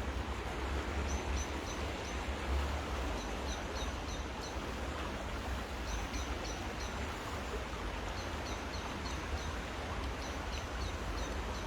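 Steady hiss of rain falling on the river, with a low rumble underneath. A small bird calls in repeated runs of four or five short, high chirps, several times over.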